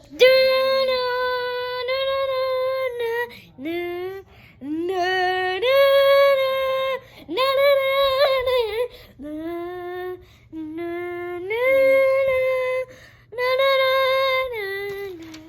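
A high voice singing a simple melody in held notes, several short phrases of one or two seconds each with brief pauses between them.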